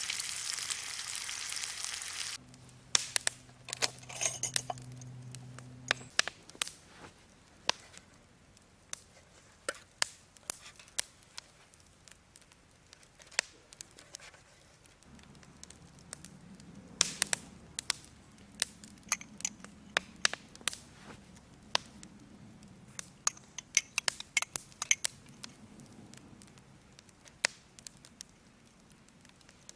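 Food sizzling in a pan, cutting off about two seconds in; then a wood campfire crackling, with scattered sharp pops and snaps.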